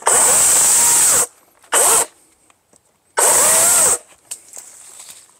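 EGO Power+ CS1611 56-volt cordless electric chainsaw triggered in short full-speed bursts while cutting small branches: a burst of about a second, a brief blip, then another of most of a second. The motor and chain whine rises and sags under load and stops dead between bursts, with no idle.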